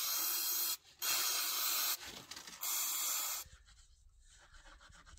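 Aerosol cleaner spray can hissing in three bursts of under a second each, with a brief weaker one between the second and third, onto a motorcycle engine's mesh oil strainer screen to wash out metal shavings. After that comes faint rubbing as the screen is wiped in a paper towel.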